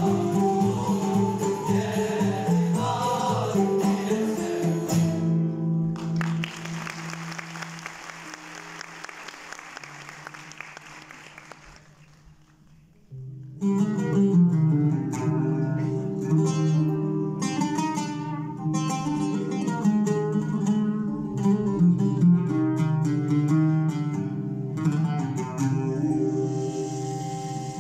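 Male choir singing with a Turkish instrumental ensemble of kanun, oud, ney flutes and drums, the plucked strings prominent. Partway through, the music thins out and fades almost to silence, then about halfway through the full choir and ensemble come back in loudly.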